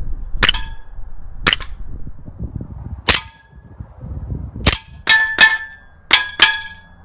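A full-metal 1911 CO2 blowback BB pistol firing: eight sharp cracks, spaced out at first and then in two quick pairs near the end, several followed by a brief metallic ring.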